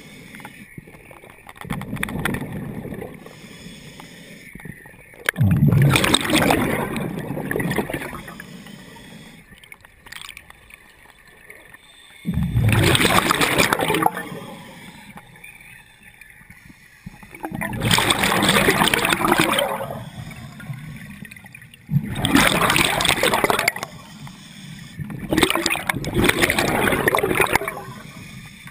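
Scuba diver's regulator heard underwater: a gush of exhaled bubbles bursts out and gurgles away about every five seconds, with quieter breathing in between.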